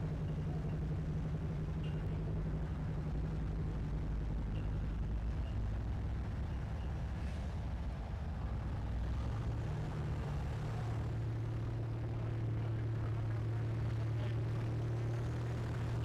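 Off-road competition truck's engine running steadily, with its note shifting lower and getting stronger about ten seconds in.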